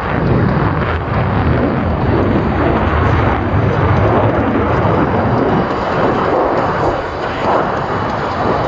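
Loud jet noise from Blue Angels F/A-18 Super Hornets in flight, their twin General Electric F414 afterburning turbofans making a dense, steady roar with heavy low rumble.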